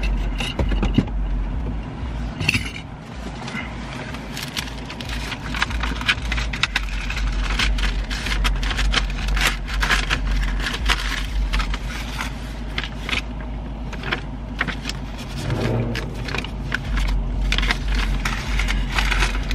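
Paper and envelopes rustling and crackling in short flurries as a stack of documents is leafed through. Under it runs the steady low hum of the car's idling engine.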